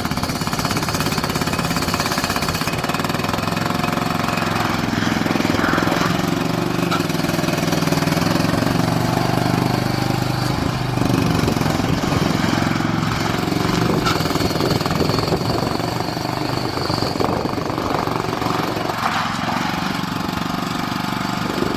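Bobcat 310 skid steer's engine running steadily with a rapid rattling beat, its note rising and falling a little now and then.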